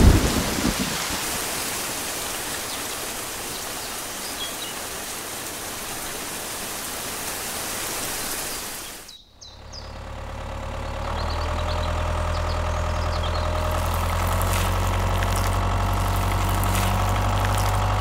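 Steady rain for about nine seconds, which cuts off suddenly. After a brief dip, a miniature DIY tractor's steady low engine sound starts and keeps running.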